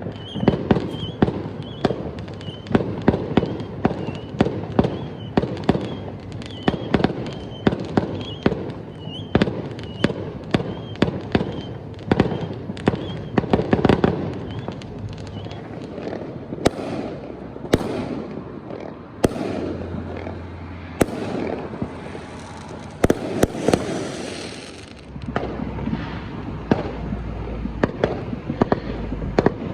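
Fireworks going off in dense, overlapping volleys of bangs and crackles, with hardly a gap. About halfway through, several hissing, crackling bursts join in for a few seconds before the bangs carry on.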